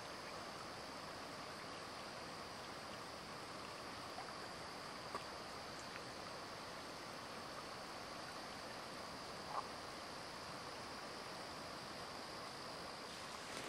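Quiet late-summer woodland ambience: a faint, steady insect chorus over a low hiss, with two small clicks.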